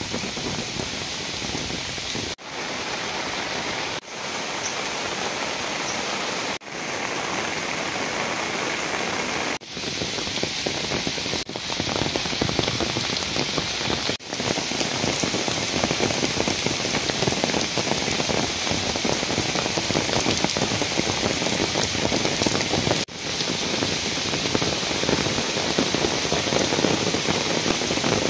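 Steady rain falling on garden foliage and wet paving, an even hiss of drops. The sound drops out briefly several times and fades back in.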